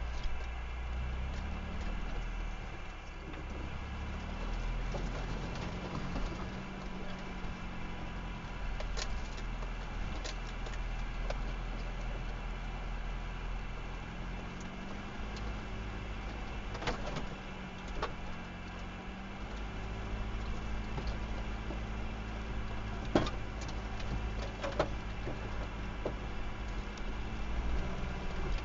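Off-road 4x4 engine running slowly in a low gear, its pitch rising and falling as it crawls along a rutted, muddy track, heard from inside the vehicle. Several sharp knocks come from the vehicle bumping over the ruts, the loudest past the middle and near the end.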